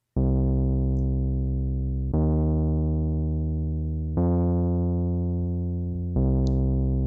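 Synthesizer keyboard playing four sustained chords, one about every two seconds, each fading slightly as it is held.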